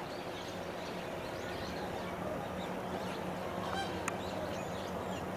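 A flock of birds calling: a steady, dense chatter of goose-like honks, with a sharper call about four seconds in.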